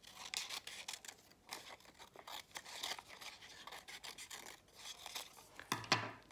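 Scissors snipping through paper in short, irregular cuts, with paper rustling as the cut-out is turned in the hands. A sharper knock near the end as the scissors are put down on the wooden table.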